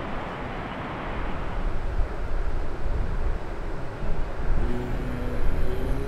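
Wind rumbling and rushing on the microphone, uneven in strength and louder from about a second and a half in. Near the end, soft held music tones fade in under it.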